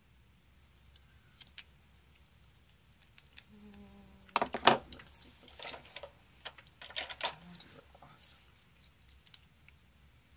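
Plastic makeup packaging being handled: scattered clicks and clatter as a lip gloss tube is picked up and opened, loudest about four and a half seconds in.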